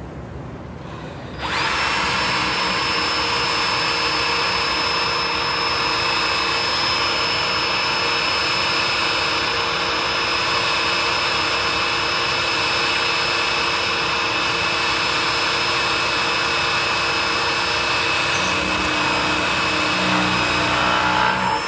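Cordless drill turning a step drill bit through steel to bore a pilot hole. It starts about a second and a half in and runs steadily with a high whine, then stops at the very end.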